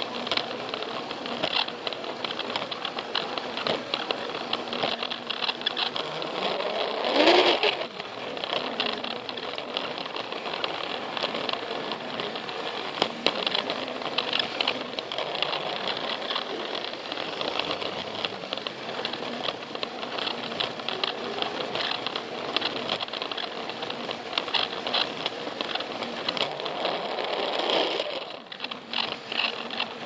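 Plarail toy train running along plastic track, heard from a camera riding on it: its small battery motor and gears run with a steady rattle and ticking of wheels on the track. The sound swells louder about seven seconds in and again near the end.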